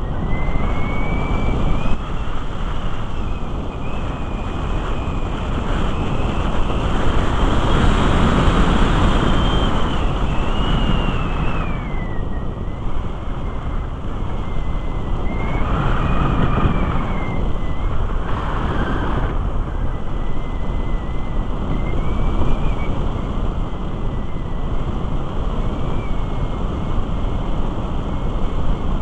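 Airflow rushing over the onboard camera of a Musger MG12a glider in flight, swelling and easing as it manoeuvres. A thin high whine rises and falls in pitch throughout.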